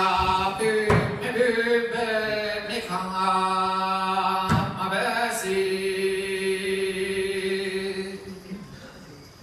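A single voice sings a slow, chant-like melody in long held notes over a steady low drone. Two sharp strikes fall about a second and four and a half seconds in, and the singing fades near the end.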